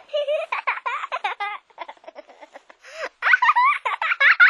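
A baby giggling and laughing in short high-pitched runs, louder in the last second or so.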